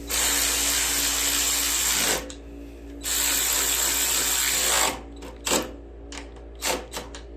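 Power drill driving in the bolts of the engine's plastic cover: two runs of about two seconds each, then a few short blips as they are snugged down.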